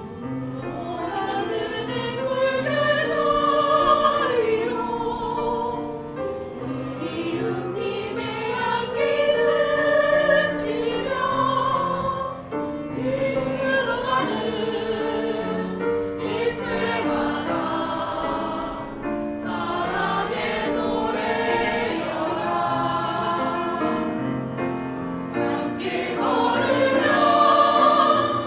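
A choir singing, several voices together throughout.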